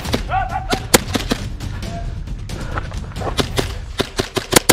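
Airsoft guns firing: a scattered string of sharp single cracks at irregular intervals, with a louder shot about a second in and a loud pair near the end.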